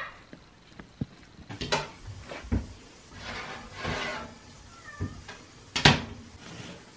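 A metal baking tray scrapes out of a small countertop electric oven, with knocks and clatter of the tray and oven door, a short squeak about five seconds in, and a sharp clack, the loudest sound, near the end.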